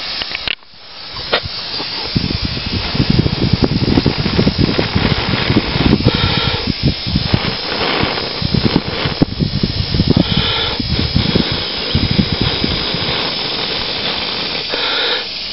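Wind buffeting the camera's microphone: a loud, gusty rumble and hiss that builds about two seconds in, with some rustle as the camera is carried and handled.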